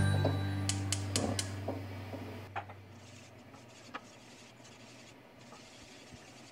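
A wire whisk and spatula stirring custard filling in a stainless steel pan: a few sharp clicks against the pan about a second in, then faint scraping with an odd tap. Background music fades out over the first two seconds.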